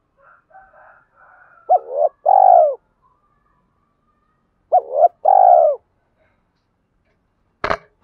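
Spotted dove cooing: two phrases about three seconds apart, each a short rising note followed by a longer falling one, after some soft quieter sounds at the start. A few sharp clicks near the end.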